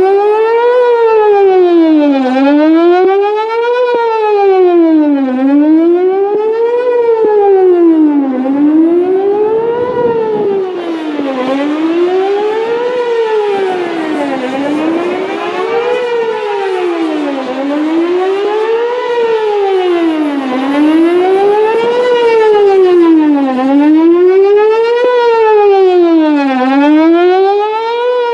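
Whelen WPS-4008 electronic outdoor warning siren sounding a wail, its tone sweeping up and down about once every two seconds. This is its scheduled monthly test signal.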